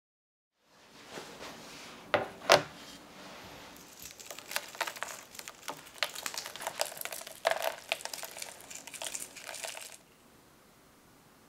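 Flakes of kosher salt crunched between fingers and sprinkled onto freshly baked chocolate chip cookies: a run of fine crackles and small ticks, with two sharper clicks about two seconds in.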